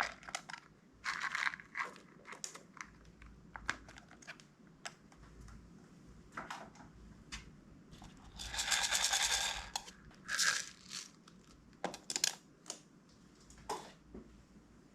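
Slime being squished and mixed by hand: irregular sticky crackles and clicks, with a longer burst of dense crackling a little before halfway.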